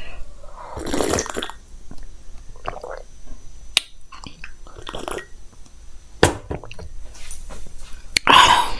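Close-miked sips and swallows of orange juice from a glass mug: short slurps and gulps broken by a few sharp clicks, with a louder burst near the end.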